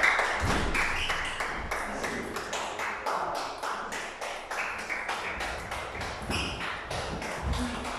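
Celluloid-style table tennis balls clicking off rubber bats and the table tops: many sharp, irregular clicks from a doubles rally and play at the neighbouring tables.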